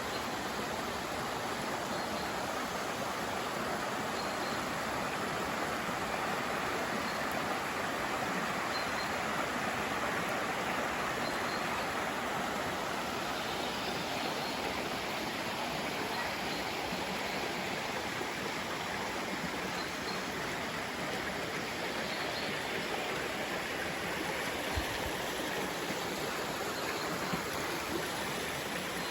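Forest stream running in a steady, even rush of water, with a few faint high chirps above it.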